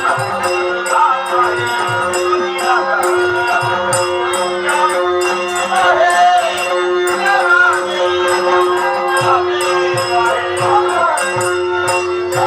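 Dashavatar folk-theatre music: a singing voice over a steady held note, with repeated drum strokes and jingling hand cymbals keeping the rhythm.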